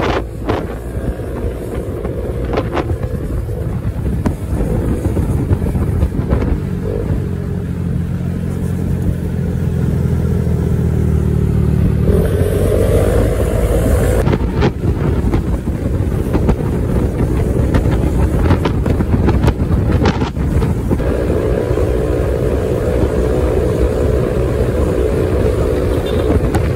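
Honda PCX 150 scooter's single-cylinder engine running steadily at road speed under way. About twelve seconds in an engine note rises in pitch for a couple of seconds, then settles back.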